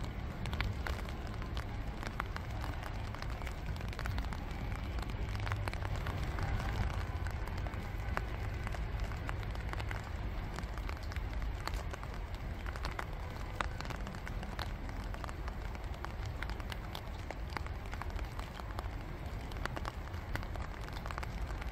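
Light rain falling on a pond: many separate drops ticking on the water surface over a steady hiss, with a low steady rumble underneath.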